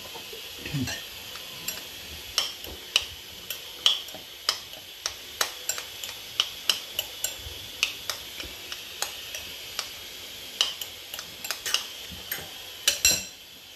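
Spoon clicking against a bowl while a salad is stirred and mixed, sharp irregular clicks two or three a second. A faint steady hiss runs underneath.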